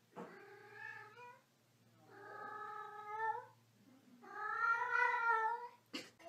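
Domestic cat giving three long, drawn-out meows in a row, each lasting over a second, the third the loudest. A short sharp click near the end.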